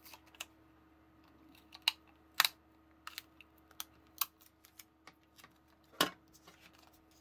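Sharp clicks and taps of a small plastic handheld tape dispenser and paper being handled: tape pulled out and cut on the dispenser. About a dozen separate clicks, the loudest about two and a half seconds in and again about six seconds in, over a faint steady hum.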